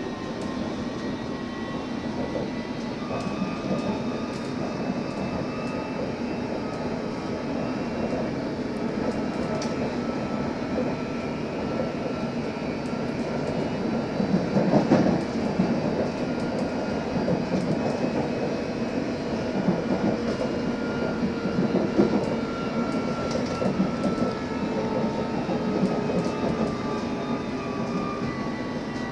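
London Underground S8 Stock train running at speed, heard from inside the carriage: a steady rumble of wheels on rail with thin whining tones over it, and a louder rough patch about halfway through.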